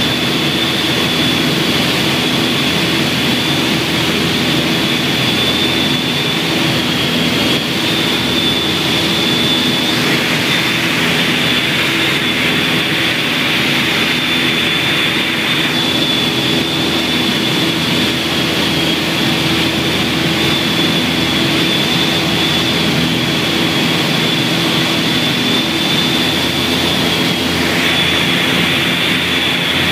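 Cabin noise of a light twin-engine piston aircraft in flight: both engines and propellers run at a steady drone, with a thin steady high whine over it and a rushing hiss that swells for a few seconds about a third of the way in and again near the end.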